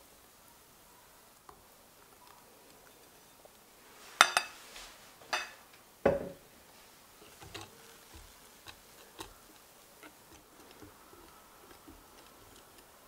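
Three sharp knocks of kitchenware about four to six seconds in, then faint, irregular ticking of a wire whisk against a glass mixing bowl as chocolate brownie batter is stirred.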